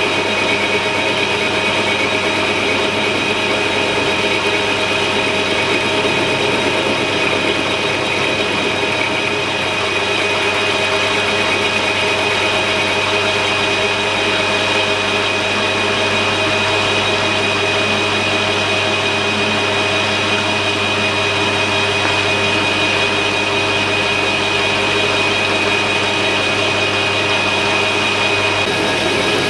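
Metal lathe running steadily as a fluted cutter in the chuck cuts into a steel block clamped in the tool post: a constant machine hum with a steady high whine.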